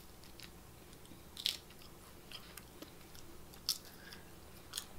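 Someone biting and chewing crisp tortilla chips topped with chili: a few short, sharp crunches over a quiet background, the loudest about a second and a half in, again near four seconds, and just before the end.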